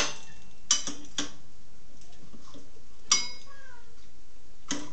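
Five sharp metallic clinks, irregularly spaced, as a wrench is fitted onto the table saw's arbor nut and knocks against the nut and blade.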